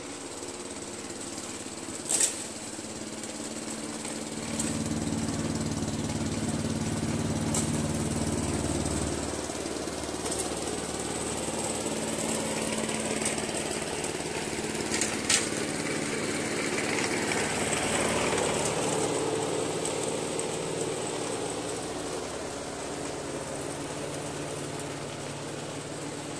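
A Honda HRZ216 self-propelled lawn mower's single-cylinder engine running steadily while it cuts grass. It grows louder and fainter as the mower moves across the lawn, and two sharp clicks come through it, one about two seconds in and one about fifteen seconds in.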